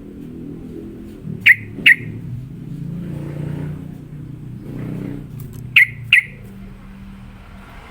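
Yellow-vented bulbul (trucukan) giving sharp, loud call notes in two quick pairs, about four seconds apart, over a low steady hum.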